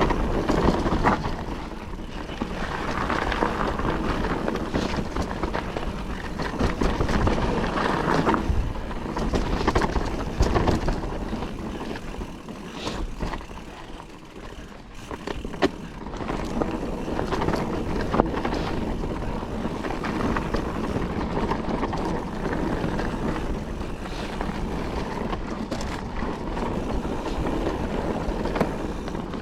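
Calibre Triple B mountain bike riding a dry, loose trail: tyres rolling and skidding over dirt and stones, with knocks and rattles from the bike over bumps and wind noise on the microphone. The noise eases off briefly about halfway through.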